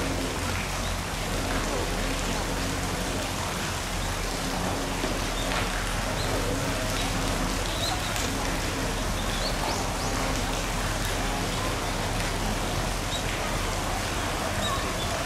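Steady water noise with faint voices in the background and a few short high chirps.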